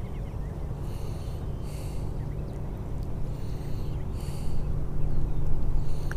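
Wind rumbling on the microphone, with a few sharp breaths out through the nose close to the microphone.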